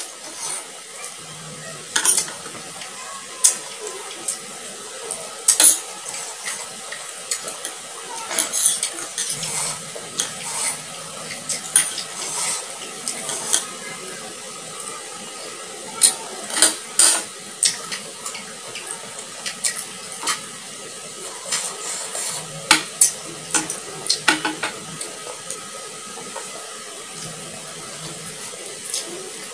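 Spoon clinking and scraping against plates in irregular, sharp clicks while a mouthful of raw shrimp and rice is chewed wetly.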